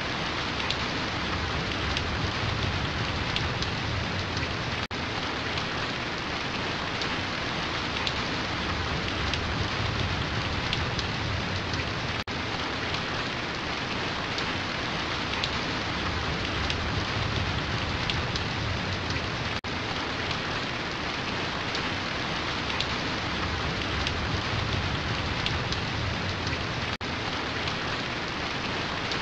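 Steady rain falling, an even hiss of many drops. The sound drops out for an instant about every seven seconds.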